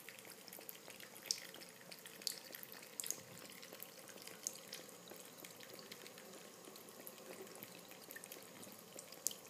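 A thin stream of tap water running onto a cat's head and trickling into a ceramic bathroom sink, faint and steady, with a few sharp drip-like ticks.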